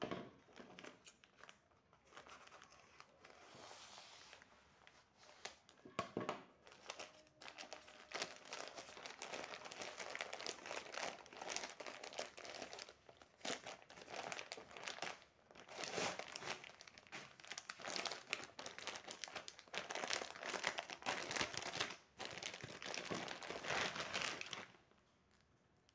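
Plastic courier mailer and its plastic wrapping crinkling in irregular bursts as hands open it and unwrap its contents, stopping shortly before the end.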